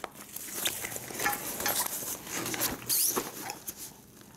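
Fabric of a laptop bag rustling and scraping as a laptop in a protective sleeve is taken out and slid into the compartment on the other side of the divider, with scattered light knocks and clicks. The handling dies down near the end.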